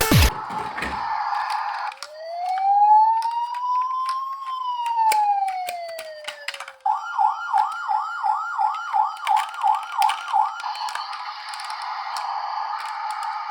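Electronic siren from a toy emergency-vehicle minicar's sound gimmick. It gives one slow wail that rises and falls over about five seconds, then a quick run of short rising yelps, about three a second, then a steady tone, with small clicks over it.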